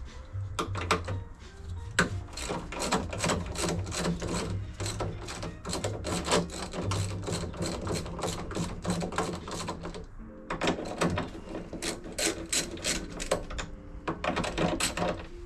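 Socket ratchet clicking rapidly as it is swung back and forth on an engine mount bolt, about four to five clicks a second. It stops briefly about ten seconds in, then starts again.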